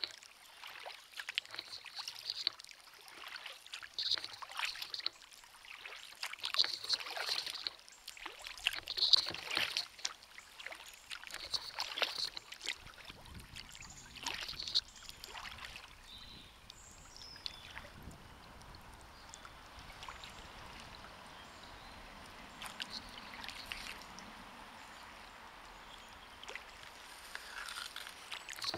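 Kayak paddle strokes: the blades dip and splash in a steady rhythm, about one stroke every second or two, with water running off them as the kayak moves through the water. About halfway through the strokes stop and only a soft wash of water remains for about ten seconds, and the strokes start again near the end.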